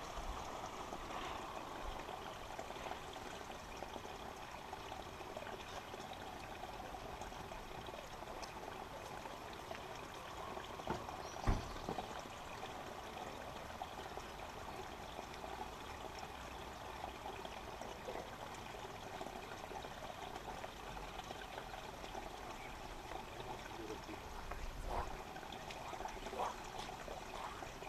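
Small flow of water trickling and running steadily, with a single sharp knock about eleven seconds in.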